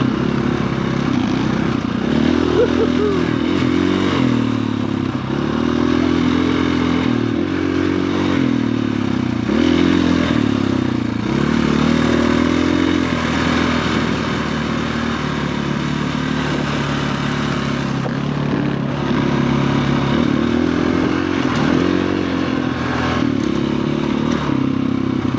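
Dirt bike engine running under load on a trail ride, its pitch rising and falling again and again as the rider opens and closes the throttle, holding steadier for a few seconds midway.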